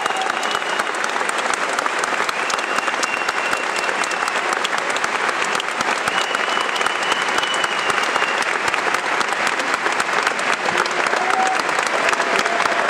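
Large audience applauding steadily in an auditorium, with a few sustained high tones over the clapping.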